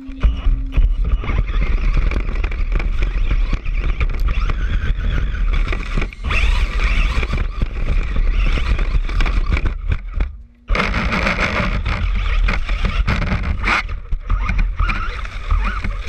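Brushless-powered Traxxas Bandit RC car driving fast over rough ground, heard from a camera riding on the car: a continuous rumbling, scraping clatter of tyres and chassis. It stops briefly about ten and a half seconds in, then takes off again.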